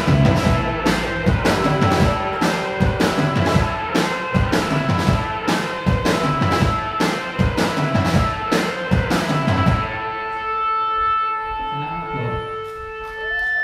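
Live rock band playing on drum kit, electric guitars and bass guitar. About ten seconds in, the drums stop and held notes ring on.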